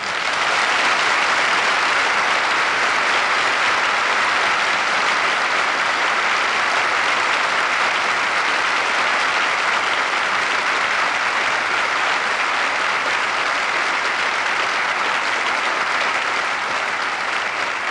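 Theatre audience applauding at the end of a song: dense, steady clapping that eases slightly near the end.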